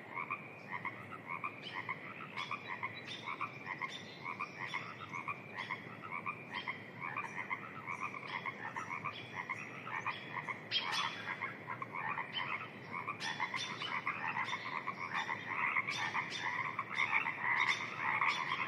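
A dense chorus of many frogs calling at once, overlapping rapid pulsed croaks that swell louder toward the end, over a faint steady hiss.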